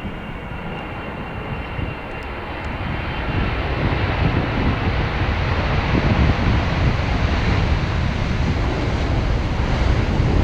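Jet engines of a Boeing 777 freighter, a steady rushing noise that grows steadily louder as the aircraft approaches.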